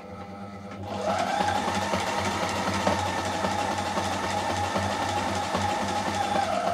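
Reliable Barracuda walking-foot sewing machine sewing a zigzag stitch through nine layers of cloth: it speeds up over the first second, then runs steadily at a fast pace with a constant whine and rapid needle clatter.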